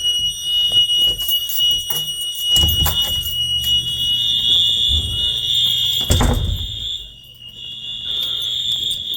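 Dorm building fire alarm horns sounding a loud, steady high-pitched tone, which drops out briefly about seven seconds in, with a thump about six seconds in.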